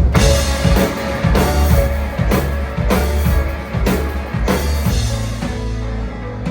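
Live rock band playing: drum kit with heavy kick and cymbal hits under guitar and bass. About five seconds in, the drums thin out, leaving a sustained guitar and bass.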